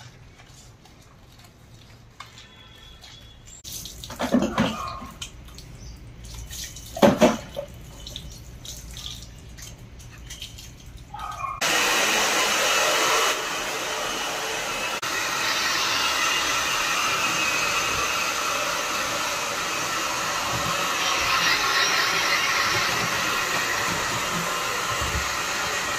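Handheld hair dryer switches on about halfway through and runs steadily, blowing on a freshly bathed dog's wet coat; its sound drops a little soon after starting. Before it there are only faint sounds and two short, louder noises.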